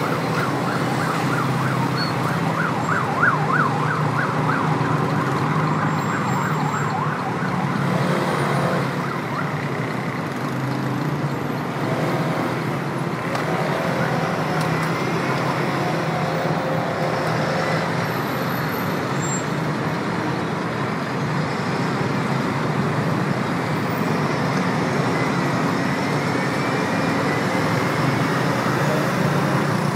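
Steady city traffic on a busy avenue: car and bus engines and tyres running together. For the first several seconds an emergency vehicle's siren sounds in a rapid yelp over it.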